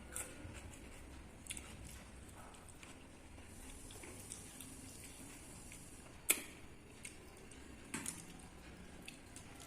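Eating sounds of pakhala bhata, rice soaked in water: soft wet squishing and small clicks, with one sharp click a little after six seconds and two lighter ones near eight seconds.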